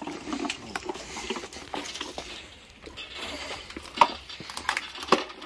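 Irregular knocks and clinks of tools and metal parts being handled during work on the car's engine, with two sharper knocks about four and five seconds in.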